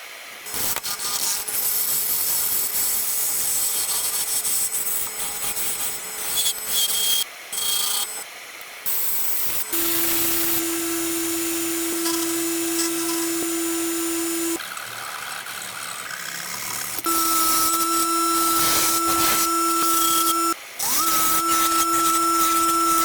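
Woodturning on a lathe: a tool cutting and rubbing against the spinning wood makes a loud hiss, with a few short breaks. Later a steady machine whine joins in. It stops briefly about twenty seconds in and winds back up with a quick rise in pitch.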